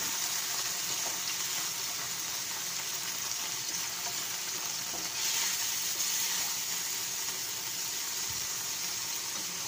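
Canned tuna with onion and garlic sizzling and spattering in oil in a frying pan while a spatula stirs and scrapes it. The sizzle swells briefly a little past halfway.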